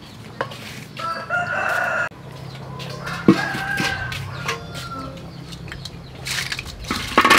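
A rooster crowing twice, with a single sharp knock about three seconds in. Near the end comes a loud clatter as raw sea snails are tipped from a metal bowl into a wok.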